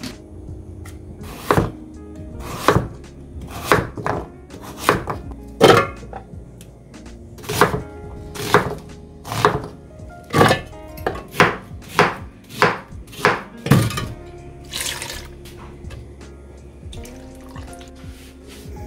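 Knife chopping on a cutting board, about one stroke a second until roughly fourteen seconds in, over soft background music.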